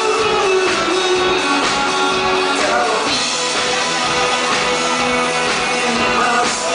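Live rock band playing: electric guitar and drums, with a male singer singing over them.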